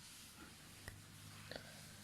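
Near silence over a low steady hum, broken by two faint sharp clicks, one just before a second in and one about a second and a half in.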